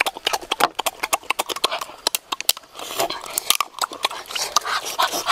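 Close-up eating of cooked crab: rapid, irregular cracks and clicks of crab shell being bitten and pulled apart, with wet chewing and sucking between them.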